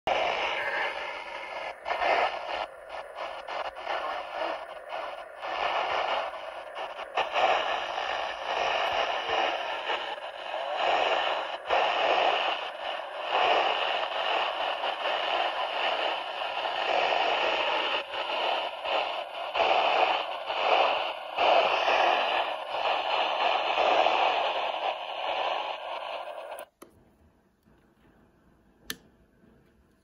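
A weather alert radio's speaker plays the WXK22 NOAA Weather Radio broadcast of a severe thunderstorm warning, heard as heavy, fluctuating static. It cuts off suddenly near the end.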